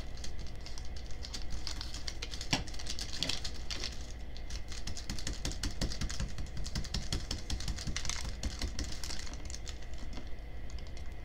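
Small paper and plastic candy-kit packets and pieces being handled close to a microphone: a steady run of light, irregular crinkles, rustles and small clicks.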